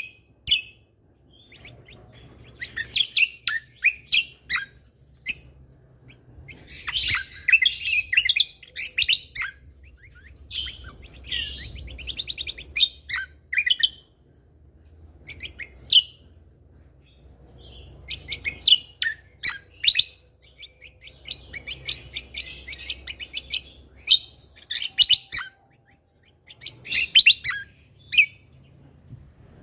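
Cucak kombo songbird singing in repeated bursts of fast, high chirps and trills, with short pauses between phrases.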